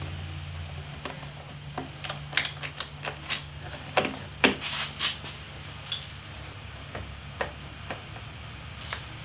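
Light clicks, taps and clinks of hand tools, screws and plastic body panels being handled while the motorcycle's rear tail section is unbolted. They come thickest from about one to six seconds in, then a few scattered ones.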